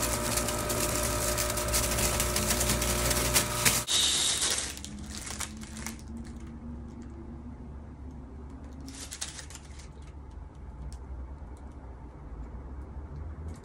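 Storz & Bickel Volcano Classic vaporizer's air pump running, blowing air through the heated chamber into the balloon bag: a steady hum with a hiss of air that cuts off about four seconds in. After that it is quieter, with a few short breathy rushes of air.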